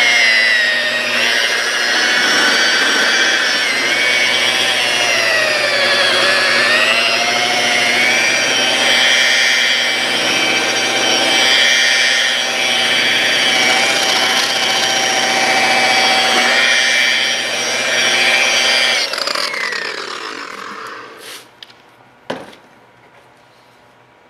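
Low-RPM rotary buffer running with a polishing pad and rubbing compound on a plastic headlight lens: a steady electric whine whose pitch sags briefly a few seconds in. About nineteen seconds in it is switched off and spins down, followed by a few sharp knocks.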